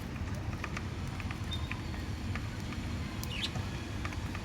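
Budgerigar pecking and cracking seeds: scattered small, sharp clicks over a steady low background hum, with a brief chirp a little over three seconds in.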